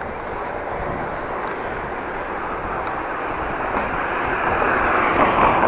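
Wind and road noise on a bicycle-mounted action camera while riding, a steady rushing noise that swells louder over the last second or so.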